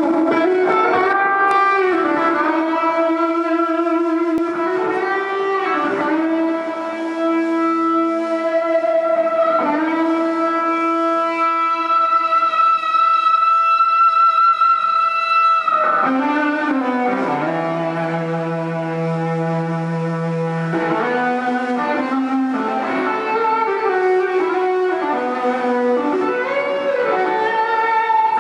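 Electric guitar playing a slow lead line of long, sustained notes with string bends and vibrato, one note held for several seconds midway.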